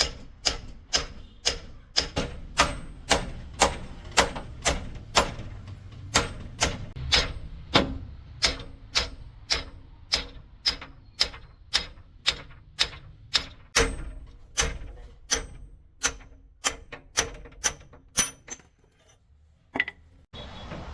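Hammer striking metal in an even rhythm of about two blows a second, the kind of pounding used to drive spring pins and bushings on a truck leaf spring; the blows stop about nineteen seconds in, with one last strike soon after.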